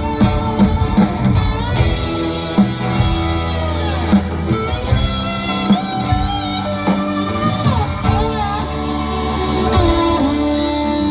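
Live rock band playing an instrumental break in a large hall: a lead guitar bends notes over a steady drum beat and sustained chords.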